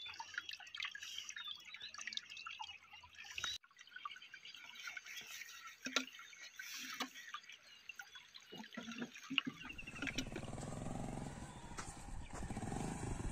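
Shallow stream trickling and splashing over stones. About ten seconds in, a small motorcycle engine comes in underneath and grows louder as the bike approaches.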